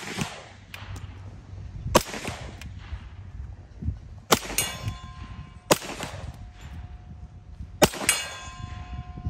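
Reising Model 50 submachine gun in .45 ACP fired in semi-auto, single shots a second or two apart. After the later shots a steel target rings with a steady tone for a second or two, the sign of hits.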